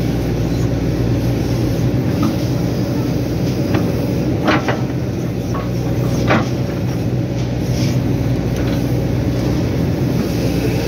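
Hydraulic excavator's diesel engine running steadily while it digs, with two brief clanks about four and a half and six seconds in.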